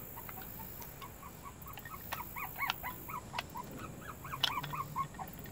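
A puppy whimpering in a quick run of short, high whines, with a few sharp clicks mixed in, the loudest about four and a half seconds in.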